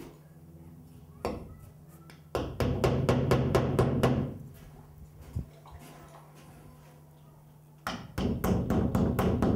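Hammer driving nails partway into a sheet of drywall at the stud lines, in two fast runs of light blows at about seven a second, with a single knock before each run.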